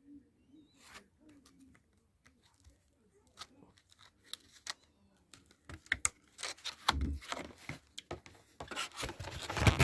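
Hands handling hard plastic computer parts: scattered small clicks, then busier clicking and scraping in the second half, with a louder knock about seven seconds in.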